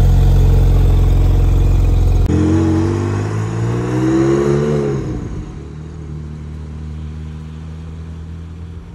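RUF R Turbo's twin-turbo flat-six idling steadily close to the exhaust; about two seconds in it pulls away, the engine note rising as it accelerates, then fading as the car drives off.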